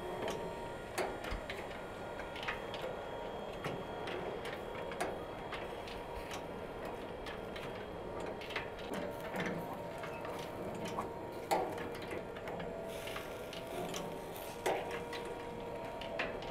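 Chain-and-sprocket drive of a rotating kebab grill running, with a steady hum under irregular ticks and clicks from the chain and the turning skewers.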